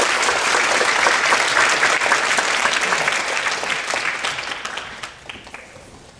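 Audience applauding, dense for the first few seconds, then dying away about five seconds in to a few scattered claps.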